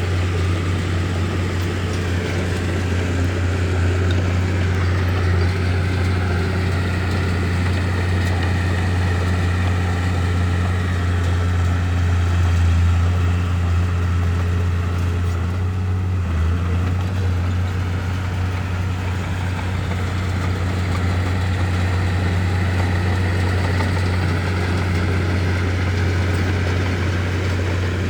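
Bulldozer's diesel engine running with a steady low drone.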